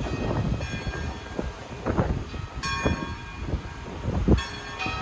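Church bells ringing, a few strikes each ringing on and fading, over a gusty rumble of strong storm wind buffeting the microphone.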